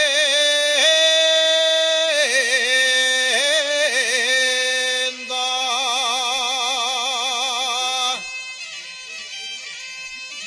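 Asturian tonada sung by a solo male voice, with long held notes in wide vibrato and quick ornamental turns. The phrase ends about eight seconds in and leaves a quieter tail.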